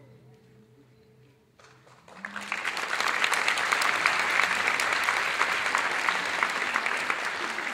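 The last notes of the music die away, then about two seconds in an audience breaks into applause, which swells quickly and keeps going.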